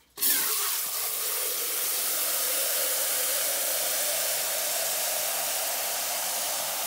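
Garden hose spray nozzle running water into a small metal pail: a steady hissing rush of water that starts abruptly, with a faint note rising a little as the pail fills.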